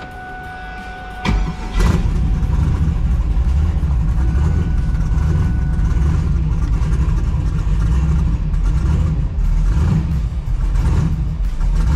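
Twin-turbo LS V8 in a Mustang cranking and firing about a second in after a steady whine, then running at a loud, steady idle.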